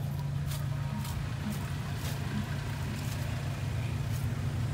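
4x4 truck engine running steadily at low speed, with a few light knocks from the vehicle about every second or two.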